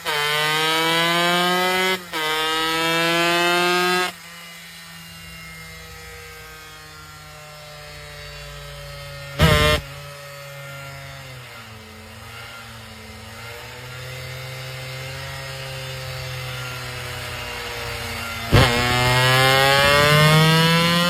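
Small high-revving motorcycle race engine revved and held at high revs in two-second bursts, dropping to a fast idle at about four seconds in. A short sharp crack about halfway through, then the revs rise again near the end and hold.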